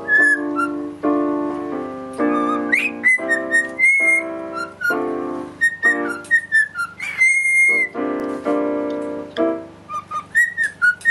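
A cockatiel whistling along to piano chords: short rising and falling whistled notes, a couple held longer, over chords played on a digital piano that change about twice a second.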